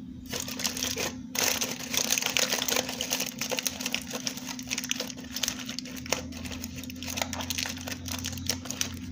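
Aluminium foil crinkling and crackling in quick, irregular rustles as hands fold and crimp it shut around a mixiote parcel.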